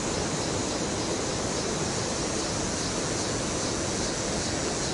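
Creek water rushing steadily over rocky rapids, an even hiss that does not change.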